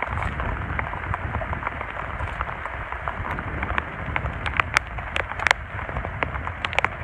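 Bare hands digging and scooping wet sandy mud and water, a steady wet crackle and splash with many small sharp clicks, busiest about two-thirds of the way through.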